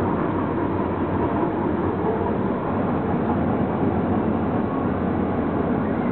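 Long CSX mixed freight train rolling past, a steady, even noise from the passing cars with no horn.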